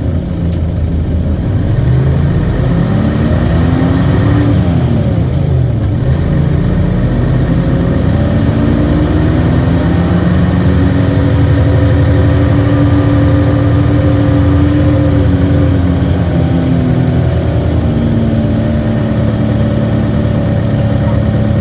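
Nissan Diesel UA460 city bus's diesel engine pulling away and accelerating through its gears. The pitch climbs, drops at a gear change about four seconds in, climbs again and holds, eases off near the end, then picks up once more.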